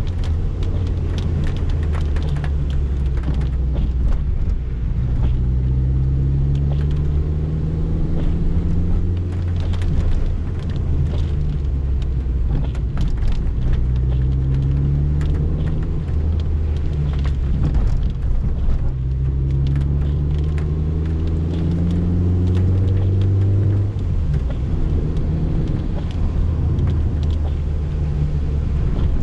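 Cabin sound of a 1990 Peugeot 205 XS's 1.4-litre carburetted four-cylinder engine under way. The engine note climbs three times as the car accelerates, dropping back at each gear change, over the hiss of tyres on a wet road and rain on the car.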